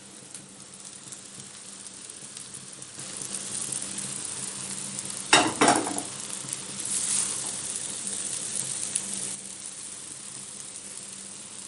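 Noodles, vegetables and chicken sizzling as they are stir-fried in a hot wok. The sizzle grows louder about three seconds in, and two sharp knocks come just after the middle.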